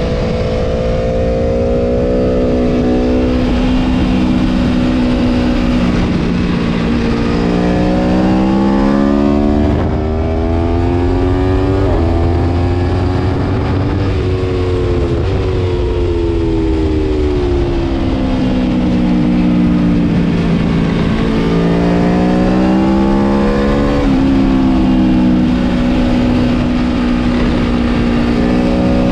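Aprilia Tuono V4 Factory's V4 engine at race pace, heard onboard: the revs climb hard through the gears, then fall away in steps on downshifts, several times over. Wind rushes on the microphone at top speed about ten to fourteen seconds in.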